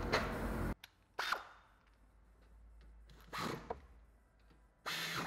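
A few brief knocks and thunks from tools and brake parts being handled, separated by quiet, after a steady noise that cuts off suddenly under a second in.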